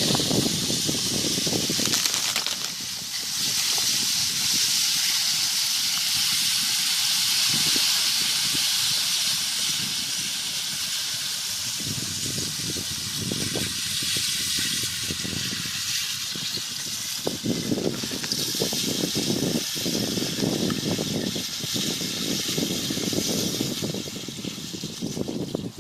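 Loose lake ice breaking up and drifting off the shore in spring, making a steady hissing rush, with busier fine crackling in the lower part from a little past the middle.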